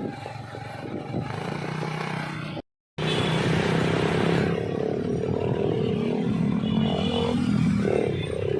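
Bus engine and traffic noise, which drops to dead silence for a split second about two and a half seconds in. It then comes back louder as a steady drone with held tones.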